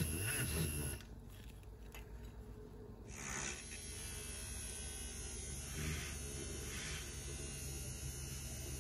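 Handheld battery milk frother whirring as its spinning whisk whips coffee into foam. It is louder for the first second, then quieter and steady.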